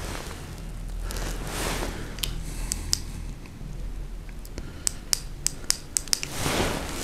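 Quiet room with a low steady hum and faint rustling, broken by a string of small sharp clicks, most of them in the second half.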